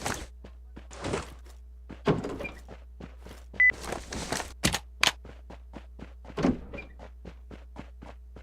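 A series of irregular knocks and clattering thunks over a faint, even ticking of about four a second, with a brief beep about three and a half seconds in.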